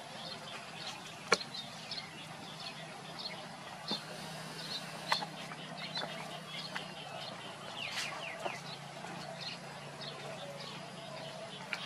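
Birds chirping: many short, high chirps scattered through, with a few sharp clicks (the loudest about a second in and again about five seconds in) and a low steady hum underneath.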